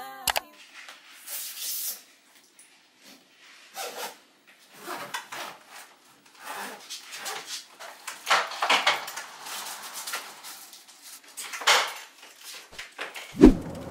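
Belongings being handled and packed into a suitcase: scattered light knocks, clatter and rustling, with a louder thump near the end.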